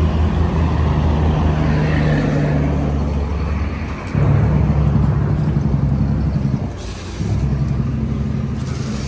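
Propane-fuelled forklift engine running steadily as it carries a heavy load. It gets louder about four seconds in and dips briefly near seven seconds.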